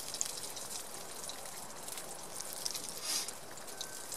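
Slices of Spam and Bacon Grill frying in a pan over a campfire: a steady sizzling hiss with crackling pops, swelling briefly about three seconds in.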